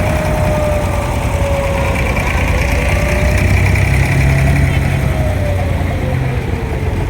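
An abra water-taxi's inboard diesel engine running steadily, a dense low rumble with a thin wavering tone above it.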